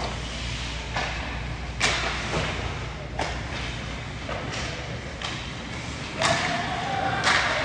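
Irregular thuds echoing in a large hall, six or seven over the stretch, the loudest about two seconds in and again near the end, over a steady background of faint voices.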